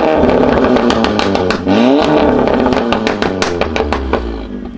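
Volkswagen Golf 7 R's turbocharged four-cylinder revving through an aftermarket iPE exhaust: the engine note climbs in pitch about one and a half seconds in, then a rapid string of sharp crackles and pops follows as the revs come off, fading near the end.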